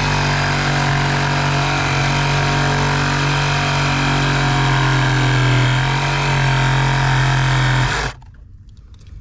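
Diesel engine of a Bobcat digging machine running steadily, then cutting off abruptly about eight seconds in, leaving a few faint knocks.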